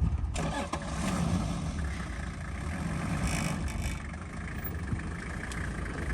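Off-road 4x4's engine running steadily at low revs, a deep even rumble.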